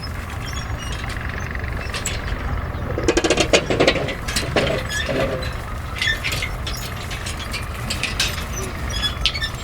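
A steady low engine rumble with frequent sharp metallic clinks and knocks, busiest from about three seconds in.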